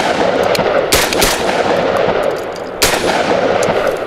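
Genesis Arms Gen-12 semi-automatic 12-gauge shotgun firing three shots: two in quick succession about a second in, then another near three seconds. The sound rings on between the shots.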